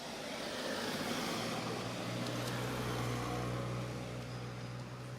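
A motor vehicle driving past: engine hum and tyre noise grow louder over the first second or so, hold, then fade toward the end.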